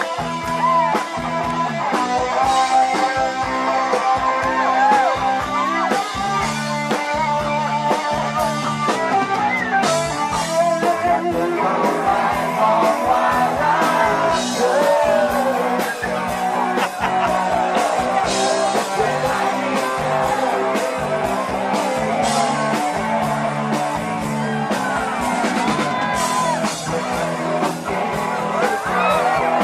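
Live rock music from a band: guitar over bass and a steady drum beat, with singing.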